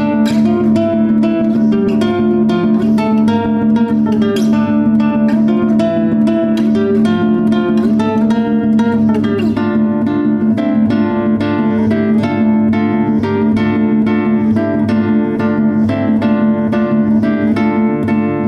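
Solo nylon-string classical guitar, fingerpicked: a fast stream of plucked notes over a low note that rings throughout.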